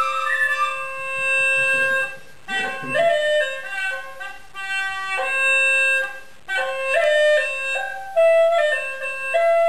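Hulusi (Chinese gourd cucurbit flute) playing a slow melody of held notes over a steady drone tone, broken by short pauses for breath.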